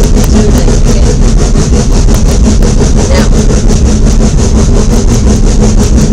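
Rack-railway train running along the track: a steady mechanical hum with a fast, even clatter.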